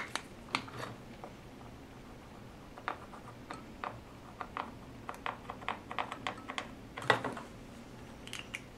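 Marker pen writing on a plastic enclosure lid: a run of short taps and small scratching clicks as the letters go down, with a louder knock about seven seconds in.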